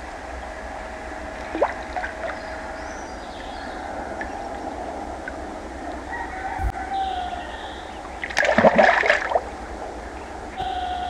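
Outdoor pond-side ambience: a steady hush with birds calling now and then, and one louder call about a second long roughly three quarters of the way through.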